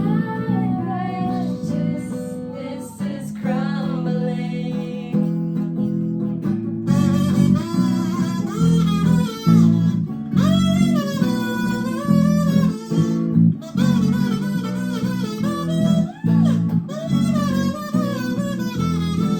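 A song with strummed guitar and a singing voice carrying the melody over it.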